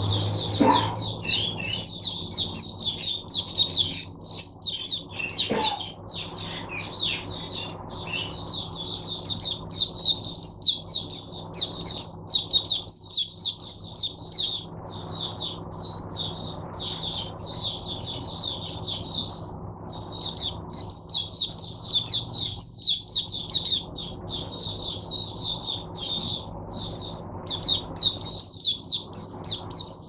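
Caged white-eye (mata puteh) singing a long, fast, unbroken run of high twittering notes with only brief pauses: the full song of a 'teacher bird' kept for other white-eyes to learn from. A faint steady low hum runs underneath.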